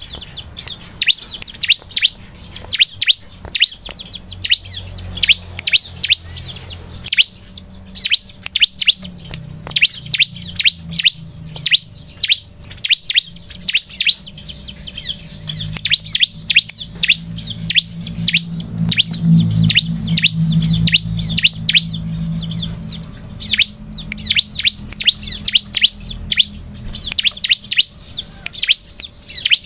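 Bar-winged prinia calling: rapid runs of sharp, high chirps, each note dropping quickly in pitch, coming in bursts of several notes a second with short pauses between.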